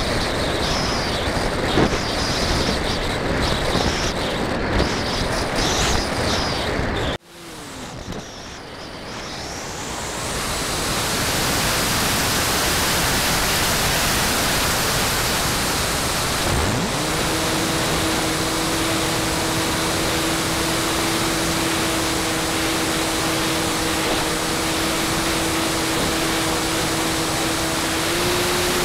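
Sound from a model airplane's onboard camera in flight: at first a steady rush of air with its motor running. About seven seconds in the sound cuts out sharply as the power is cut, then the wind noise builds again as the plane glides. About seventeen seconds in the propeller motor spins up into a steady whine, stepping up a little in pitch near the end.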